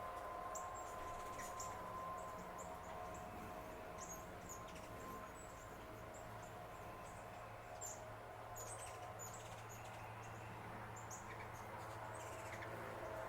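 Small birds giving short, high chirps, several a second at times, over a steady low hum and faint steady tones.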